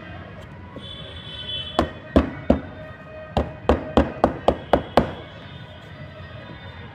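About ten sharp knocks or taps in quick, uneven succession over a steady background hum.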